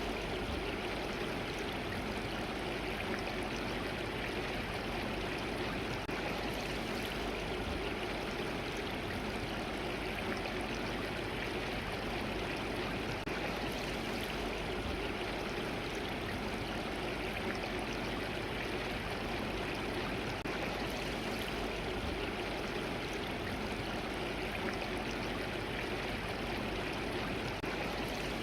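Mountain stream (valley brook) water flowing and splashing over rocks, a steady, unbroken rush of water.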